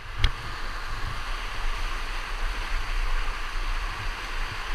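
Waterfall rushing steadily, with a low rumble underneath and one sharp click just after the start.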